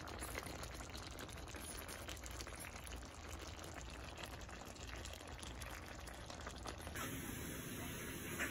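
Pork afritada simmering in a pan: faint, steady bubbling and crackling of the tomato sauce. The sound thins out near the end.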